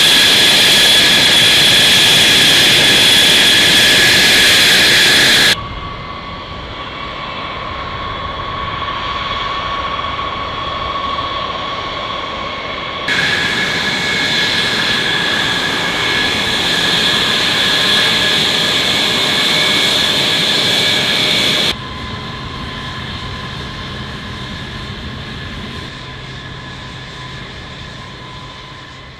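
F-35 Lightning II jet fighter's single turbofan engine running: a steady high whine over a roar. The sound changes abruptly three times where clips are joined, is loudest in the first few seconds, and fades away near the end.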